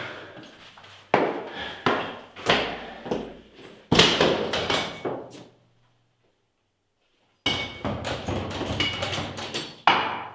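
A series of heavy thuds and knocks, each ringing out, the loudest about four seconds in; after a short break, a fast irregular clatter of knocks.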